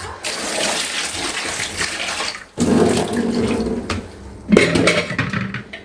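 Kitchen tap running as onions are rinsed under the stream; about two and a half seconds in, the sound of the water changes and turns fuller and lower.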